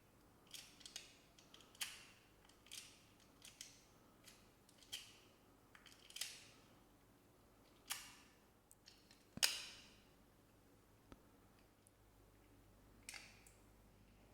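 Plastic magnetic building tiles clicking together as their embedded magnets snap them into place, a series of sharp separate clicks at uneven intervals about a second apart, one louder snap about two thirds of the way through.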